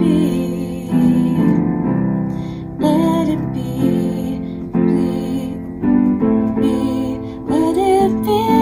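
Piano chords in a slow song, changing about every second, with a woman's voice singing a melody over them.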